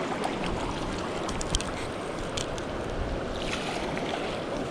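Steady rushing of river current, with a few faint ticks.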